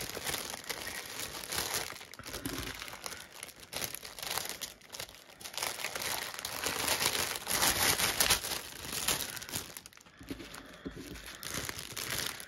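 Small plastic zip-lock bags of diamond-painting resin drills crinkling as they are handled and gathered up, in irregular rustling bursts, louder a little past the middle.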